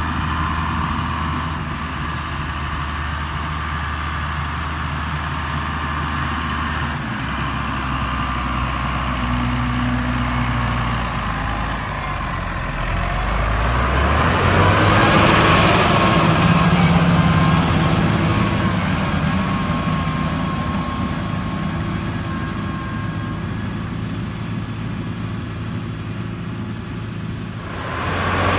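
Case Maxxum 5150 tractor's six-cylinder diesel engine running steadily under load as it pulls a reversible plough. Its note shifts about halfway through and it grows louder for a few seconds as it comes close.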